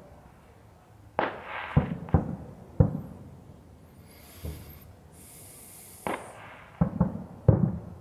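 Distant fireworks display, its shells bursting about 5 km away: about eight sharp bangs, each with a short rumbling tail. They come in two clusters, one starting about a second in and one near the end.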